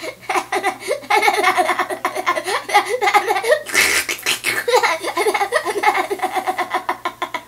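A person laughing without pause in rapid, high-pitched pulses, with a short noisy burst about four seconds in.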